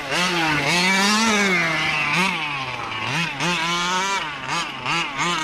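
1/5-scale RC car's two-stroke petrol engine revving up and down in repeated short blips as it warms up, running rich.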